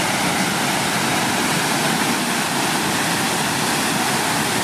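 A large waterfall, water plunging and crashing in a steady, even rush.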